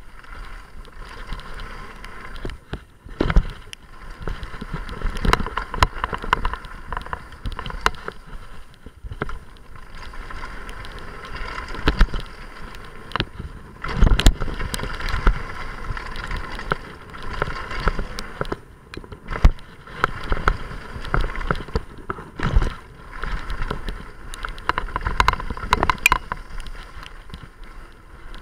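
Downhill mountain bike riding fast over a dirt and gravel trail: steady tyre noise and rattling from the bike, broken by repeated sharp thumps and knocks from bumps and landings, the hardest about 12 and 14 seconds in.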